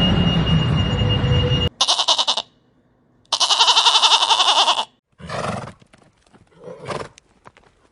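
An animal calling: after a burst of rumbling noise, two loud, rapidly pulsing cries, the second about a second and a half long, then two fainter calls.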